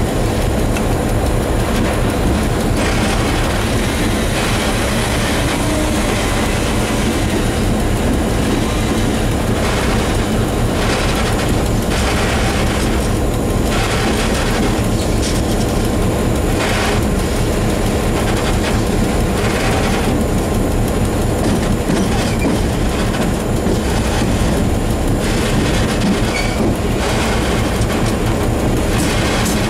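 Class 661 (EMD G16) diesel locomotive under way: a steady engine drone under wheel-on-rail noise, whose higher hiss swells and fades every few seconds.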